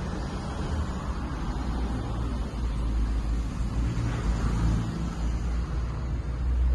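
The air-cooled flat-four engine of a 1974 Brazilian Volkswagen T1 bus idling, a steady low rumble heard from inside the cabin.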